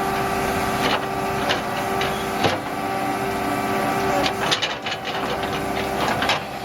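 Tracked excavator's diesel engine running steadily under hydraulic work, with several sharp knocks of rock against the steel bucket and thumb.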